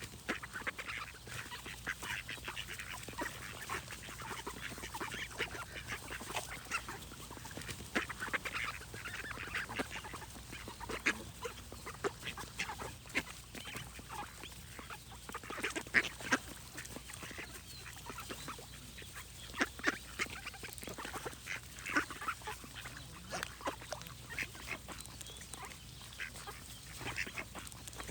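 A flock of ducks quacking, with many short calls overlapping and following one another closely throughout.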